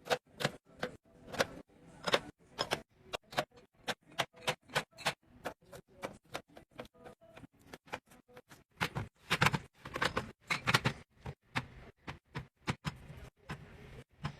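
Rapid, irregular clicks and taps of small items being handled and set down during restocking, several a second, louder for a couple of seconds about two-thirds of the way through.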